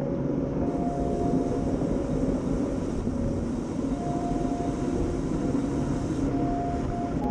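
Wind rushing over the microphone of a camera on a road bike moving at about 46 km/h in a pack of riders, with road noise from the tyres, as a steady low rush. Faint held tones sit underneath.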